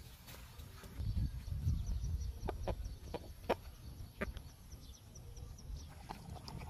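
Chicken clucking in a few short, separate clucks, over a low rumble in the first few seconds.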